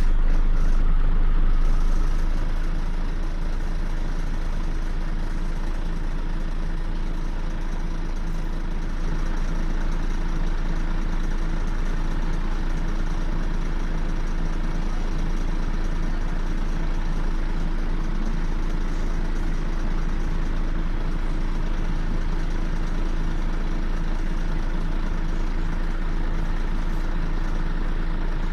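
Scania CN94UB OmniCity city bus engine idling steadily. Its level eases down a little about two seconds in and rises slightly again about nine seconds in.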